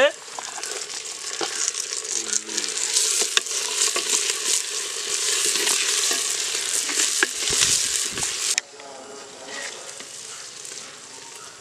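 Peeled garlic, onions, curry leaves and green chillies frying in hot sesame oil in a clay pot, sizzling and crackling as a wooden stick stirs them. The sizzle drops suddenly to a quieter level about three-quarters of the way through.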